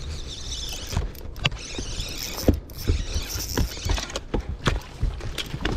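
Spinning reel being cranked to bring in a hooked bass: a run of irregular mechanical clicks and knocks over a hiss.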